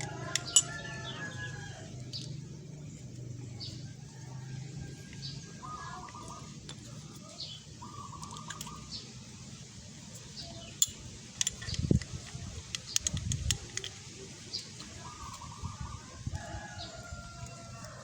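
Chickens calling in short repeated calls, each under a second long, with a cluster of sharp metallic clicks midway through as brake pads are fitted into a scooter's front disc brake caliper.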